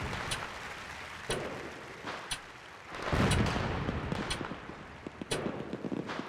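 Fireworks sound effect: a deep boom about three seconds in, smaller bangs around it and crackling near the end, over a sharp clock tick once a second.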